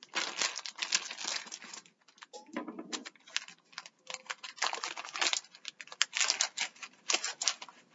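Clear plastic bag of dried chickpeas being handled and twisted: the plastic crinkles and the chickpeas rattle and click against each other in an irregular patter, with a few short pauses.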